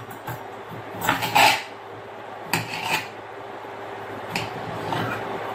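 A kitchen knife and small tomatoes clicking and knocking on a countertop as the tomatoes are cut and set down: a cluster of sharp knocks about a second in, a few more a second and a half later, and lighter clicks near the end, over a steady faint hum.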